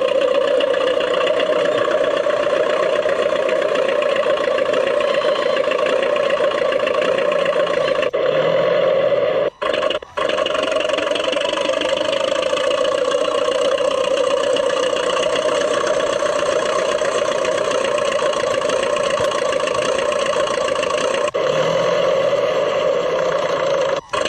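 RC model DT-54 crawler bulldozer running steadily, a continuous mechanical drone with a strong mid-pitched hum. The sound cuts out briefly twice about ten seconds in and once near the end.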